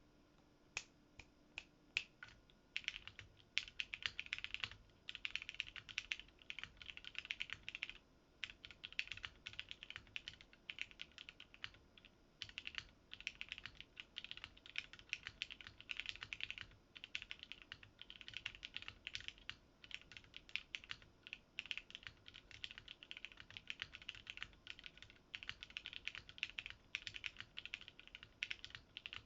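Custom Maker Velvet TKL mechanical keyboard being typed on: lubed and filmed Ultraglide MX Black linear switches in a plateless build, with GMK keycaps. It opens with a few single keystrokes, then runs of fast typing broken by short pauses.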